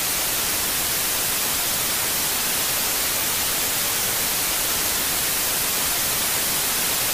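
Untuned television static: a steady, even hiss.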